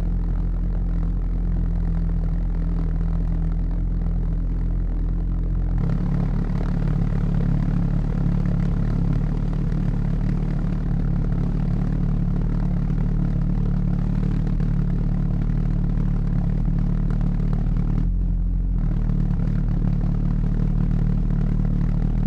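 Pulse jet engine running continuously with a loud, steady low drone. Its tone shifts slightly twice.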